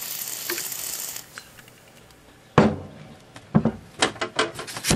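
Aerosol freeze spray hissing steadily onto the degaussing thermistor of a valve colour TV chassis, chilling it to test the degaussing circuit. The hiss stops about a second in. From about halfway through come a series of sharp clicks and knocks.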